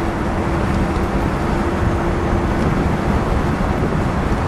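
1968 Mercury Park Lane's 390 cubic-inch V8 cruising at steady speed, heard from inside the car with tyre and road noise: a smooth, even hum that holds steady throughout.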